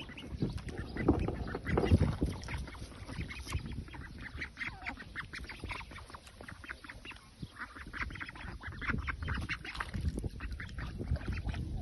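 Wild ducks quacking, with many short calls overlapping.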